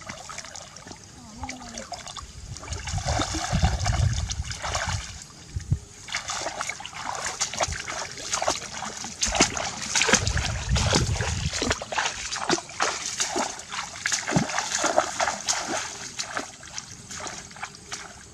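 Water splashing and sloshing in many quick strokes, with heavier sloshes a few seconds in and again around the middle.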